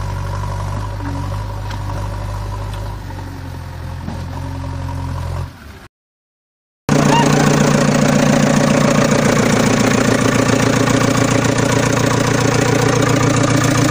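Engine running steadily, fading out about five seconds in to a second of dead silence. Then a louder engine comes in, idling with a fast, even chug.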